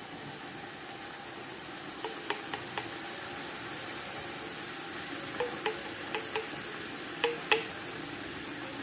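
Hot jaggery syrup poured through a small steel strainer onto grated coconut in a hot steel pan, with a steady sizzle and, from about two seconds in, a scattering of light metal clinks from the strainer and pans.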